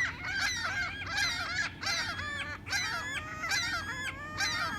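A flock of seagulls squawking, many harsh calls overlapping without a break, as the gulls fight over food being thrown to them.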